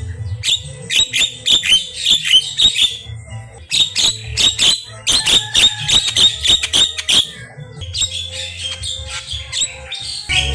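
Javan myna (jalak kebo) calling in rapid runs of short, sharp chattering notes, in bursts with brief pauses, over a steady low backing of music.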